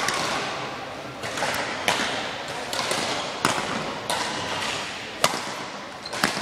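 Badminton racket strings striking a shuttlecock in a rally, a string of sharp hits about once a second, each followed by a short echo in a large sports hall.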